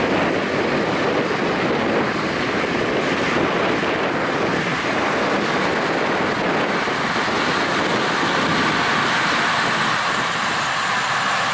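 Harvest machinery running steadily, heard as an even rushing noise with wind on the microphone.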